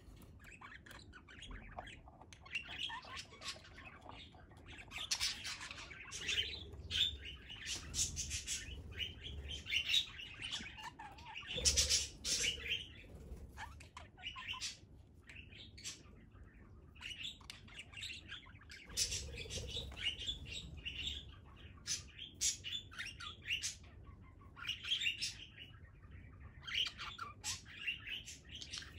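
Budgerigar chattering and chirping in many short bursts, with small clicks mixed in.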